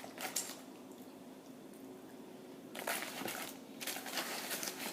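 Close-up wet chewing and squishing mouth sounds of someone eating chicken wings, in a few short spells, the loudest about three seconds in.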